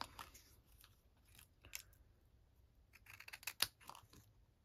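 Scissors snipping through thin cardstock, a few quiet cuts with the busiest run of snips about three to four seconds in.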